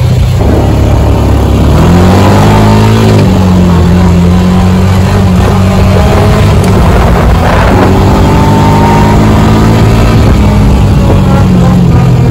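Honda Pioneer 500 side-by-side's single-cylinder engine pulling the machine up to road speed, heard from the cab, loud. The engine note climbs in pitch near the start, eases about three seconds in, holds steady, and climbs again near eight seconds. The engine sits under the seats with no sound-deadening mat fitted yet, and the owner calls it pretty loud on the road.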